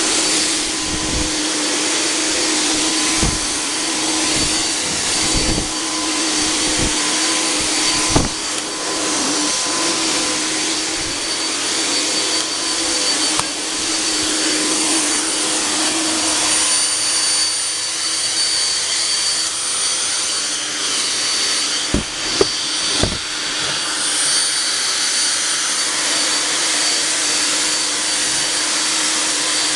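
Volkodav cold fog generator running steadily with a whine, spraying insecticide solution as a fog. A few dull knocks: one about a quarter of the way in and two close together past the two-thirds mark.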